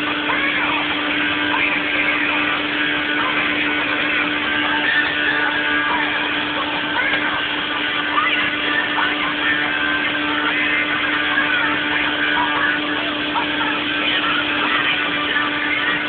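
Combine harvester running steadily while its unloading auger empties grain into a truck alongside: a loud, even machine drone with a constant hum.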